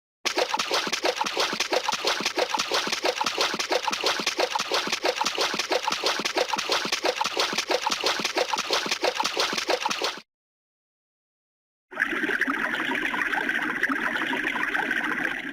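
Running water for about ten seconds, fast and irregular. It cuts off into a silent gap of about two seconds, then a second, steadier stretch of running water starts and runs to the end.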